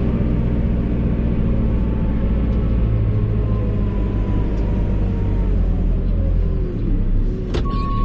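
JCB Super Agri 532-70 telehandler's diesel engine running steadily, heard from inside the cab. A faint whine comes in for a few seconds in the middle, and there is a sharp click just before the end.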